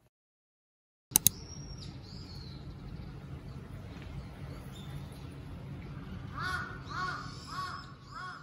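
Two sharp clicks about a second in, then steady outdoor background. Near the end, a crow caws four times, about two calls a second.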